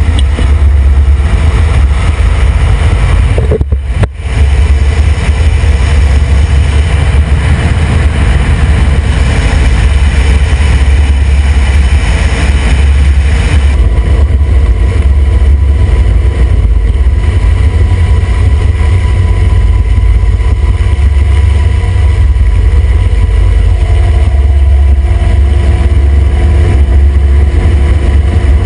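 Black Hawk helicopter's rotor and twin turbine engines running loudly and steadily, with a heavy low beat from the rotor. There is a brief break about four seconds in, and the sound turns less hissy about halfway through.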